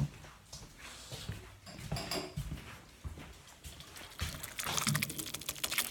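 Wet squelching and smacking sounds from food being worked, irregular at first and then a dense run of rapid wet clicks through the second half.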